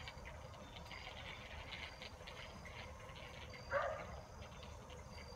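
Quiet outdoor background with faint high chirping throughout, and one short, loud call nearly four seconds in.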